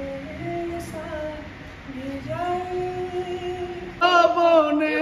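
Unaccompanied singing of a Bengali song: a voice holds long, sliding notes, and about four seconds in a man's voice comes in much louder.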